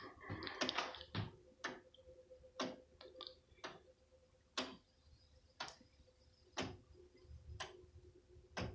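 Wooden-geared, weight-driven pendulum wall clock ticking, with sharp clicks about once a second after a quicker cluster of clicks at the start.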